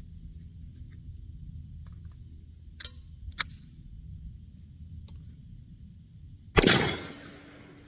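Two sharp clicks a little under three and a half seconds in, then a single 9mm pistol shot from a Glock 19 in a CAA MCK chassis, with a short echoing tail.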